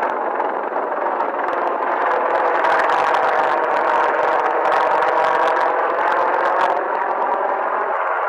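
Several UH-60 Black Hawk helicopters flying low overhead, their rotors and twin turboshaft engines making a loud, steady noise.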